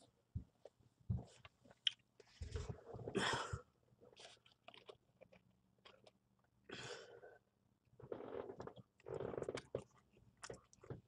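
A man eating fried fast food: chewing, with scattered small clicks and taps and a few louder shuffling sounds up to about a second and a half long as he sits down and handles the food.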